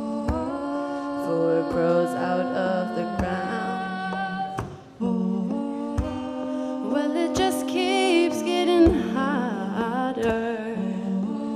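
Live music from an electric and acoustic guitar duo: long held melodic notes over the guitars, with a brief drop about halfway through and notes wavering in pitch near two thirds of the way.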